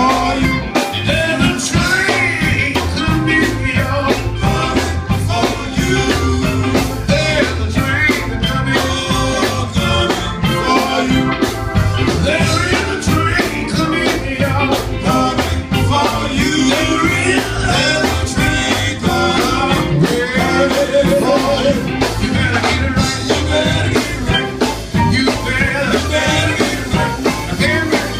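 Gospel vocal group singing lead and harmony parts live, with band accompaniment over a steady beat.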